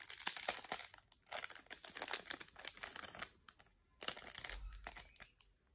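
Crinkly wrapping around a stack of sticky notes being handled and opened, in rapid crackles. The crackling comes in two spells with a short pause between.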